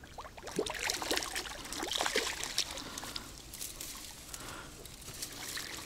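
A small, lively trout splashing at the water's edge as it is landed, with water trickling and dripping: irregular small splashes and clicks, some louder around one to two seconds in.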